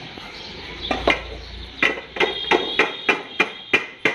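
Rapid, evenly spaced metallic knocking like hammering on metal, about three strikes a second, starting a little under two seconds in, each strike ringing briefly.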